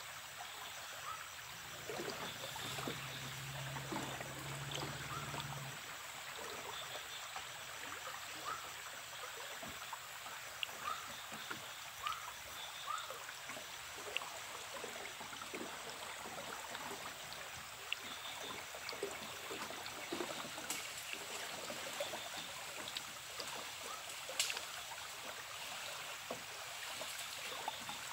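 Steady rush of river water around a small boat, with short animal chirps scattered through and a low hum for a few seconds near the start.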